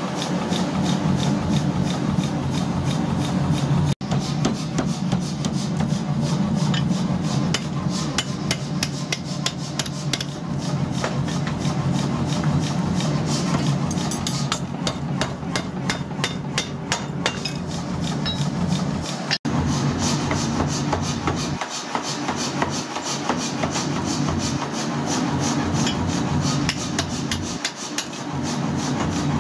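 Metal forging hammering: rapid, evenly repeated strikes on metal over a steady machine hum, with two brief breaks where the sound cuts.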